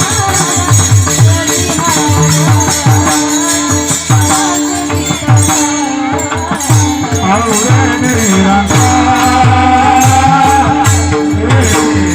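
Bhajan music: deep hand-drum strokes that drop in pitch and jingling rattle-like percussion beat out the rhythm under a held droning tone, with a wavering melody line carried more strongly in the second half.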